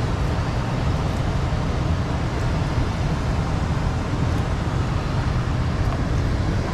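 Steady, loud, low rushing noise with no breaks or separate events.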